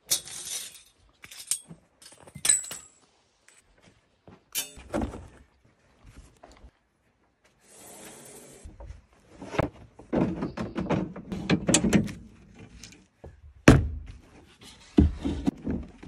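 Scattered knocks, clanks and clicks as a new band blade is handled and seated on the blade wheels of a Norwood HD36 bandsaw mill and the wheel covers are worked shut. A stretch of denser clatter comes about ten seconds in, and one sharp knock follows soon after.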